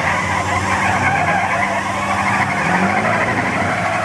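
A camo Chevy and a blue Ford pickup pulling against each other in a tug of war: engines revving hard under full load, tires spinning on the pavement. The engine pitch climbs a couple of times.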